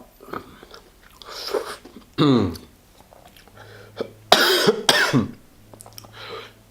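A man coughing and clearing his throat several times, the loudest cough about four and a half seconds in, set off by the burn of a hot-sauce-covered burger.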